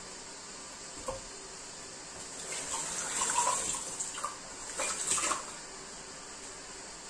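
A light knock about a second in, then water splashing in two short spells over a steady background hiss.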